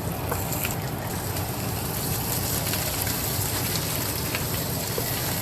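Oxtails searing in hot oil in a pan: a steady sizzle with scattered small pops, over the steady hum of the stove's range-hood fan.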